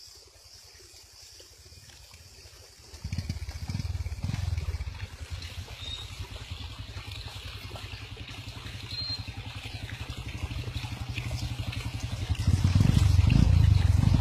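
Motorbike engines running as the bikes ride closer over a muddy dirt track, a low pulsing rumble that starts about three seconds in and grows louder near the end.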